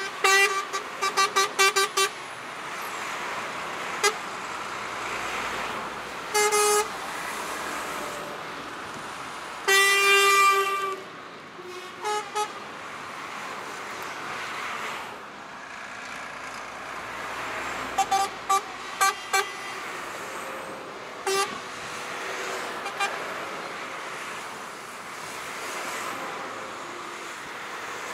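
A convoy of trucks passing on a wet motorway, tyre and engine noise swelling and fading, while truck horns sound: a quick run of about six short toots at the start, a blast lasting about a second some ten seconds in, and a run of four short toots later.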